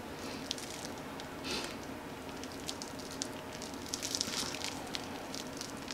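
Faint crinkling and crackling of the plastic wrap on a watch being turned over in the hands, as scattered light ticks over a low steady hum.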